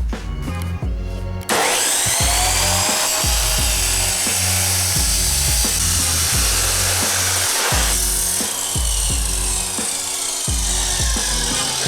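A power tool cutting through steel exhaust pipe. It starts about a second and a half in and runs on loud and steady, its pitch gliding as it bites, over background music with a steady bass beat.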